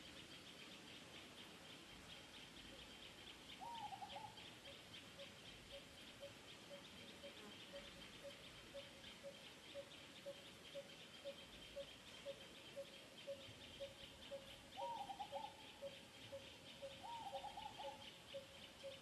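Faint outdoor birdsong and insects: a bird repeats a single low note about two to three times a second, starting a few seconds in, over a steady high insect buzz, with a few short warbling calls from another bird.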